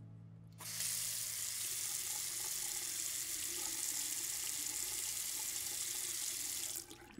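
Bathroom sink faucet turned on, its stream of water running steadily into the basin for about six seconds, then shut off near the end.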